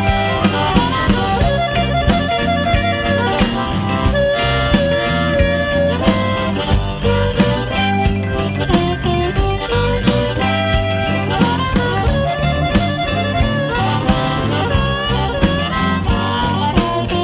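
Blues song in an instrumental passage with no vocals: guitar carries the melody over bass and a steady drum beat.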